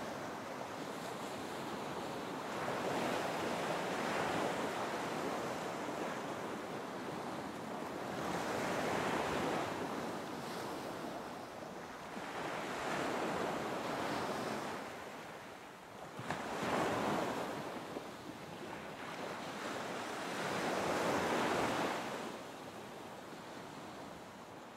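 Ocean waves washing in and drawing back, a rush of surf that swells and fades about every four to five seconds.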